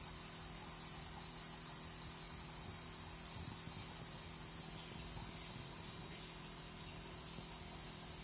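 A cricket chirping in a steady, fast, even trill, with a faint low steady hum underneath.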